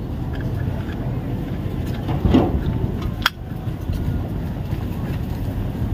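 Handling noise as a phone is fitted into the spring-loaded clamp of a chest-strap phone mount: a brief rustle a little after two seconds in, then a single sharp click about a second later as the clamp closes on the phone, over a steady low background rumble.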